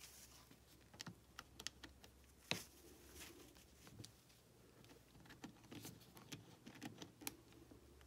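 Faint, irregular small clicks and taps of gloved hands handling a bypass tool against a briefcase's metal three-dial combination lock, with one sharper click about two and a half seconds in.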